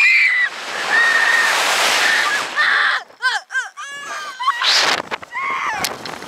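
Two girls screaming as a slingshot ride launches them upward, with wind rushing hard over the microphone. About three seconds in the wind drops and their screams break into short repeated cries, with more high screams near the end.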